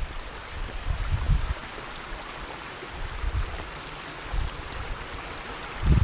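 Wind buffeting the microphone in several low rumbling gusts over a steady rushing hiss.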